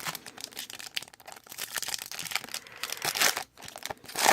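Plastic trading-card pack wrapper crinkling and tearing as a pack is handled and opened, with irregular rustles and a couple of louder crackles near the end.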